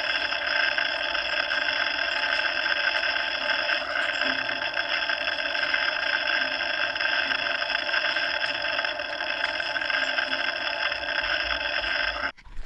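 Steady rushing, hissing mechanical noise with several fixed tones, heard inside a diving bell; it cuts off abruptly near the end.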